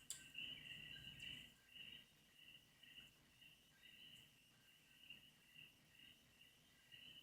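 Near silence with a faint cricket chirping, a high pulsing trill that repeats steadily, and a few soft clicks in the first second or so.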